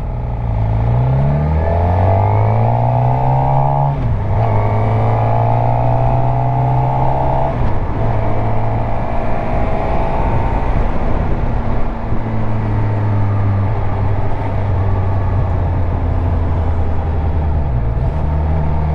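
Suzuki GSX-R750's inline-four engine pulling under way: the revs climb, drop sharply at a gear change about four seconds in, climb and hold again, then ease off near eight seconds and run steadily.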